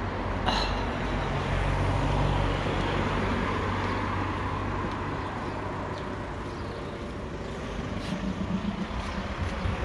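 Road traffic: a motor vehicle's engine rumble, strongest in the first few seconds and then fading, with a brief sharp hiss about half a second in.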